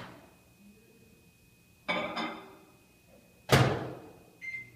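Two knocks of things being handled and set down on a table, about a second and a half apart, the second the louder. A short high beep comes near the end.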